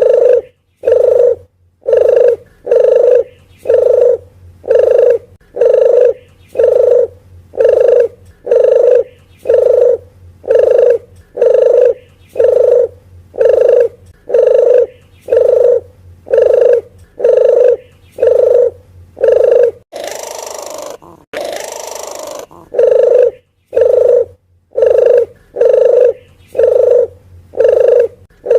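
Repeated coos of a puter geni dove from a bird-lure call recording. The low, even notes come about once a second, and a short hissing burst breaks the series about 20 seconds in.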